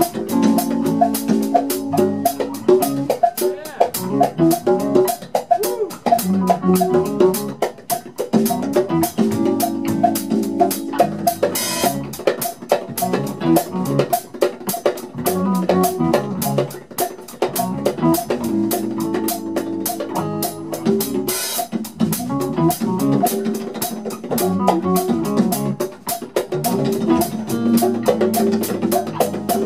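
Live funk band playing an instrumental groove: drum kit and hand percussion strike a busy, steady beat under electric guitar and pitched bass and keyboard notes.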